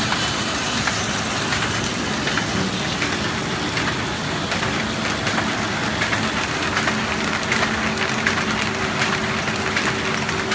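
Paper shopping bag making machine with a handle unit running in production: a steady, dense clatter of many quick ticks over a constant hum.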